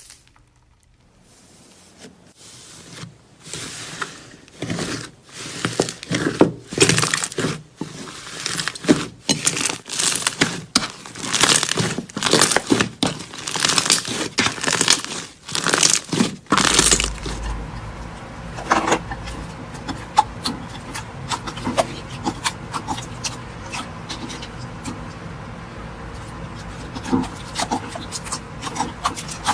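Slime worked by hand: a run of loud crackling squishes, about one to two a second. Partway through the texture changes to a steady stream of fine crackles and small pops.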